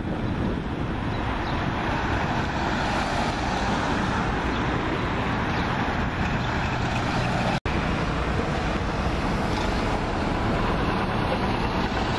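Steady road traffic noise, a continuous even rush that cuts out for an instant about seven and a half seconds in.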